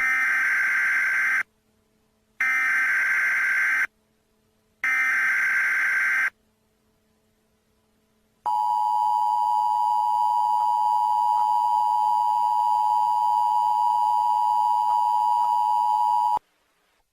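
Emergency Alert System signal: three short bursts of digital SAME header data tones, each about a second and a half, then after a pause a steady two-tone attention signal held for about eight seconds that cuts off abruptly. It heralds a tornado warning.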